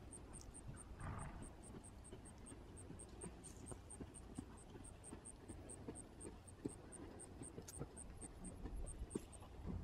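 Faint, soft hoofbeats of a horse walking on sand arena footing, under a steady high-pitched chirping at about four pulses a second.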